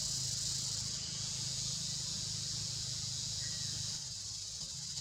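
Steady, high-pitched drone of an insect chorus, with a faint low rumble underneath.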